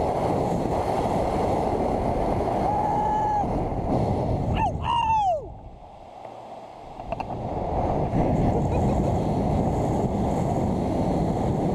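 Wind rushing hard over the microphone as a rider swings through the air on a canyon swing rope; it drops away for a couple of seconds in the middle, then builds again. A person's yell, falling in pitch, sounds just before the lull.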